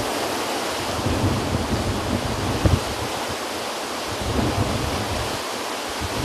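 Tropical-storm wind and heavy wind-driven rain: a steady rush of rain with gusts buffeting the microphone in uneven low rumbles, and a brief knock partway through.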